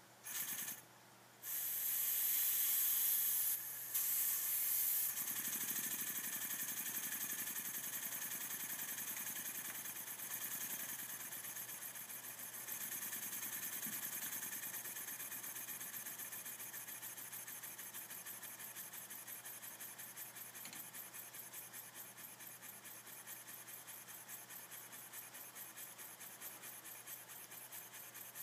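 Model Elderberry mill engine, a small horizontal single-cylinder engine with flywheel, running. A hiss starts sharply, breaks briefly, then comes back loud. It settles into rapid, even exhaust puffs that slowly grow fainter.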